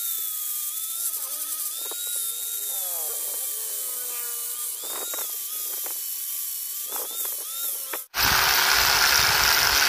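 Small handheld angle grinder with a sanding disc smoothing a metal boat-propeller blade, its high motor whine wavering in pitch as it is pressed to and eased off the metal. About eight seconds in it stops abruptly and a louder, steady rushing noise with a low hum takes over.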